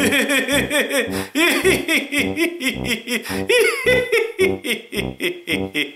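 Laughter: several voices in quick, rising-and-falling 'ha-ha' bursts, over a steady low beat.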